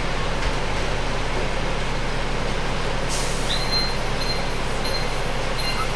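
Bus engine running steadily, heard from inside the passenger cabin. About three seconds in there is a short hiss of air, typical of the bus's air brakes, followed by a high electronic beep repeating about twice a second.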